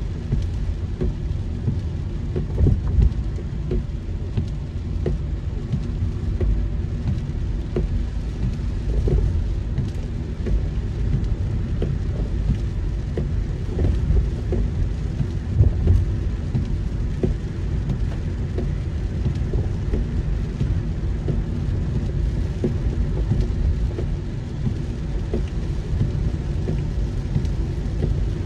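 Heavy rain drumming on a moving car, a dense patter of drops over a steady low rumble, with a couple of louder surges.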